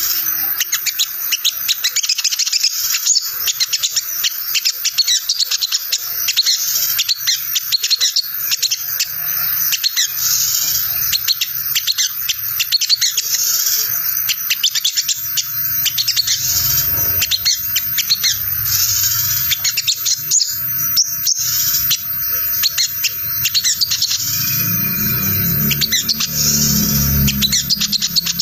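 Olive-backed sunbird (sogon) giving its rapid, high-pitched twittering 'ngriwik' chatter, a continuous fast run of chirps used as a lure call to provoke other sogon birds into answering. A faint low rumble sits underneath near the end.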